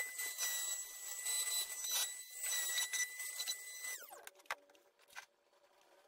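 Makita palm sander running with a steady high whine as it sands a wooden box top. About four seconds in it is switched off and its whine falls away as the motor winds down.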